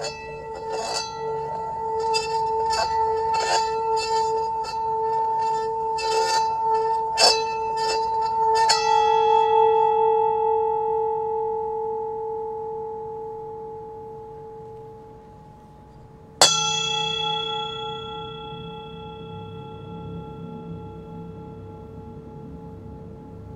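Brass singing bowl rubbed around the rim with a wooden striker: a steady two-tone hum with irregular clicks of the stick on the rim. About nine seconds in it sounds with a brighter ring and slowly fades. It is struck again about two-thirds of the way through and left to ring and die away.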